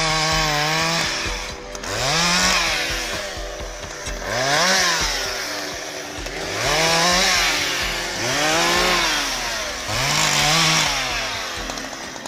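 Husqvarna 365 two-stroke chainsaw bucking a fallen log. The engine revs up and drops back about five times, roughly every two seconds, as it cuts through and eases off between cuts.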